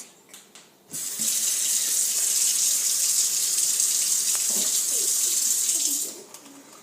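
Sink tap turned on about a second in, running steadily for about five seconds, then shut off.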